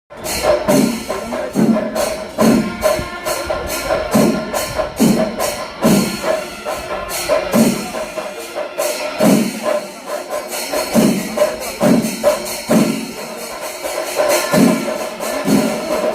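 Kerala temple percussion ensemble (chenda melam): drums beating a steady rhythm, a low stroke a little faster than once a second, under constant clashing of small hand cymbals.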